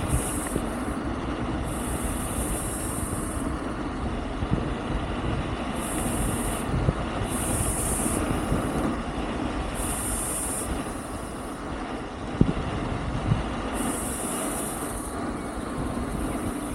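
Wolf King GT Pro electric scooter rolling down a steep road strewn with gravel and sand: a steady rumble of tyres and wind noise. A couple of sharp knocks come about three quarters of the way through.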